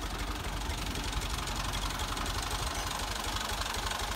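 Tractor diesel engine running steadily with a fast, even chugging beat.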